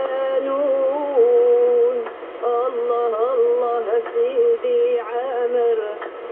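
Sung music from a Polish Catholic Mass broadcast, received on longwave AM radio: a single wavering melody line with vibrato over accompaniment. It sounds thin and boxy, with the bass and treble cut away by the narrow AM band.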